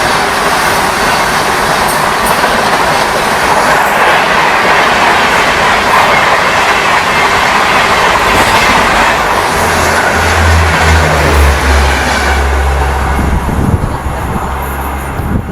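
Express train running through a station at speed without stopping: a loud, continuous rumble and rattle of the coaches' wheels on the rails, with a low drone joining about ten seconds in.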